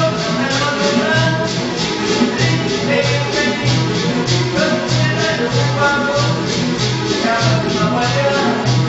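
Traditional Buganda royal music played live: shakers rattle in a fast, steady rhythm over a regular low drum beat, with short pitched notes running through it.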